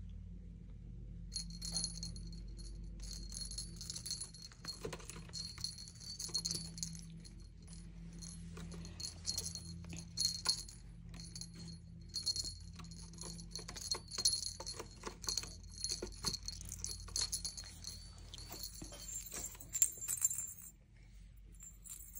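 Small bell in a cat toy jingling in quick irregular shakes as a kitten bats and paws at it, dropping away near the end.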